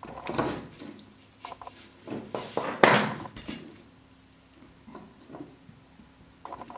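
Plastic and metal parts of a Nokia Cityman 150 phone being handled and worked apart: scraping with clicks and knocks, loudest in a short flurry with a sharp knock about three seconds in.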